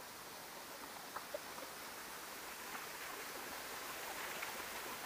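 Faint, steady background hiss with a few light clicks scattered through it.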